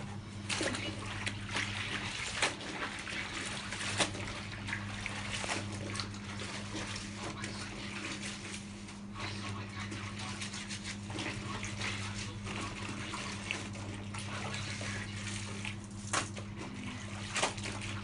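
Clothes being washed by hand in a plastic basin of soapy water: continuous sloshing and splashing as the garments are rubbed and squeezed, with frequent sharp splashes. A steady low hum runs underneath.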